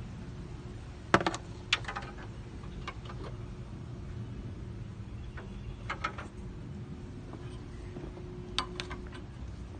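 A few short, sharp metallic clicks and clinks at uneven intervals over a steady low hum: clicks about a second in, near two seconds, around six seconds and near nine seconds.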